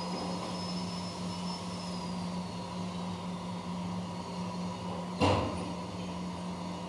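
CNC machine running with a steady hum and a faint high whine that slides slowly lower, then one short, loud thump about five seconds in.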